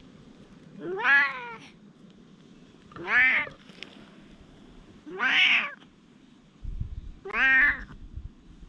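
Stray cat meowing four times, about two seconds apart, each call drawn out and rising then falling in pitch.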